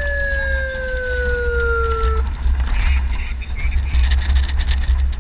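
A vehicle siren wails once, its pitch sliding slowly down until it cuts off about two seconds in. Under it runs the steady low rumble of the moving Humvee.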